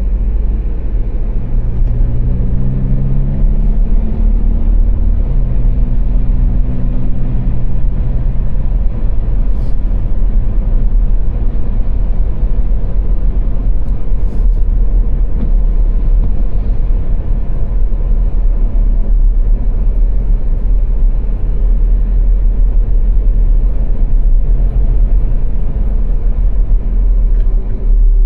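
A car driving on a motorway: a loud, steady low road and engine rumble. Within the first several seconds the engine note climbs twice, as it does when accelerating through a gear change, then settles back into the even drone.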